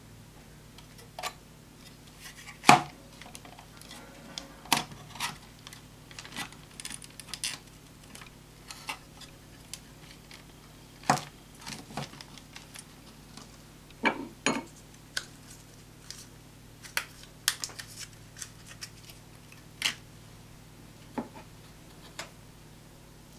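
Irregular sharp clicks, taps and light knocks of a mini PC's hard plastic and metal parts being handled, the loudest knock about three seconds in, over a faint steady low hum.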